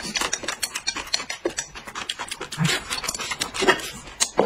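Close-up eating sounds: chewing and slurping, with many small clicks and a few quick puffing breaths near the end.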